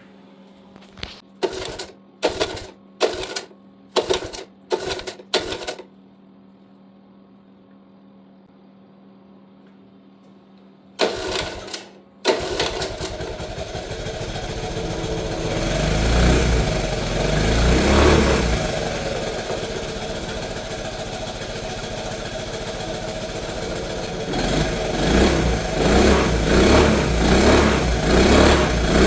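1984 Honda ATC70's small four-stroke single being pull-started: about six quick pulls on the recoil starter, a pause, then one more pull on which it catches and runs. It revs up, settles to a steady idle, then is blipped repeatedly near the end, running again after a carburetor cleaning and new ignition points, condenser, coil and spark plug.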